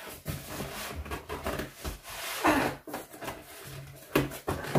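Plastic wrapping, foam packing and a cardboard box rustling and scraping in irregular bursts as a heavy slow cooker is worked out of its packaging. The rustling is loudest about halfway through, and there is a sharp knock a little before the end.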